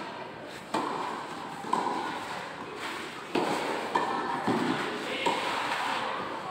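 Tennis rally: about six sharp racket strikes and ball bounces at uneven intervals, each trailing off in the echo of a large indoor hall.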